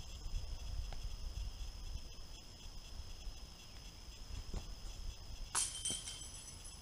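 A disc golf disc strikes a metal basket with a sudden short metallic clang and ringing jingle of its chains, about five and a half seconds in. Wind rumbles on the microphone throughout.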